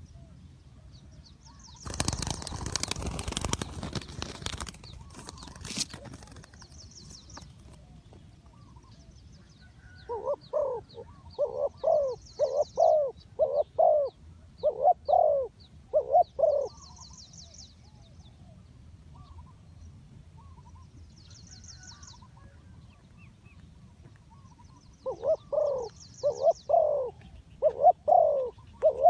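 Spotted dove cooing in two bouts of rhythmic coos, each a run of about seven notes, the first about a third of the way in and the second near the end. A burst of rustling noise comes a couple of seconds in, and faint high chirps from small birds come and go.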